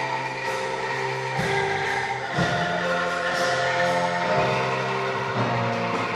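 Angklung ensemble playing: shaken bamboo tubes sound held chords that change every second or two.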